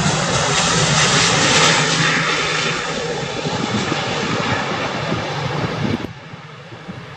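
Airbus A350 on landing approach, its Rolls-Royce Trent XWB turbofans and airframe giving a loud, steady jet roar as it passes close by. The roar eases slightly after about three seconds, then cuts off suddenly about six seconds in, leaving faint outdoor background.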